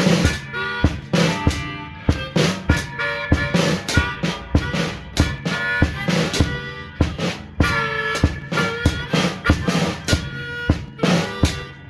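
Hohner Piedmont Blues diatonic harmonica played blues-style through a green bullet microphone, holding and bending notes over a steady drum-kit beat of kick, snare and rimshots.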